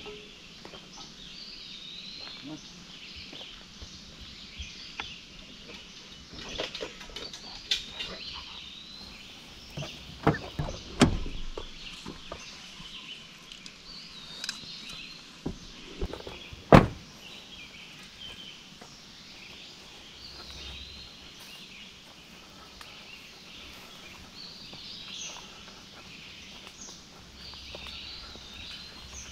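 Forest birds singing, with a run of knocks and clatters in the middle as a fishing rod and gear are handled in a truck cab. The loudest is a single sharp knock about 17 seconds in.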